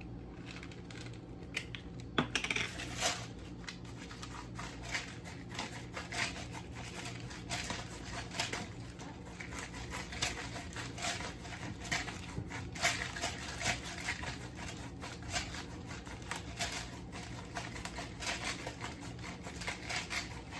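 Irregular light clicks, taps and scrapes of kitchen utensils against a bowl, a few every second, with a steady low hum underneath.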